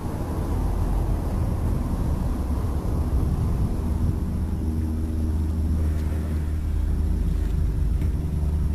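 Wind buffeting the microphone, a steady low rumble. A faint steady hum joins about four seconds in.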